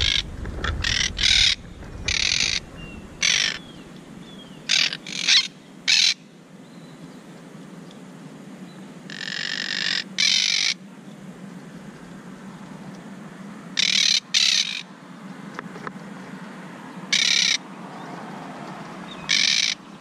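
Monk parakeets giving loud, harsh squawks: a rapid string of short calls in the first six seconds, then a longer call, a pair, and two single squawks spaced out toward the end. This is the fussing of the birds at a camera placed beside their nest.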